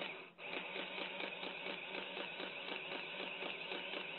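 Sharp printing calculator printing paper tape: a steady mechanical rattle in a fast, even rhythm of strokes, with a short break just after the start.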